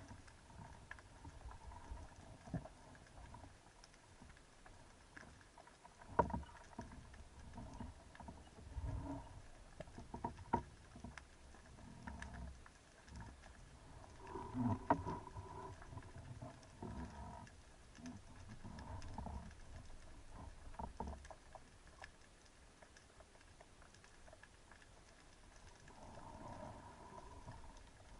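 Faint underwater sound through an action camera's housing as the diver swims along the reef: scattered sharp clicks and crackles over irregular low rumbling from water moving past the housing.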